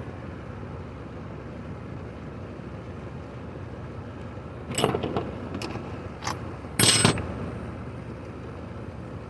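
A few light metallic clicks, then a louder short clatter about seven seconds in, as metal parts and tools are handled, over a steady low background rumble.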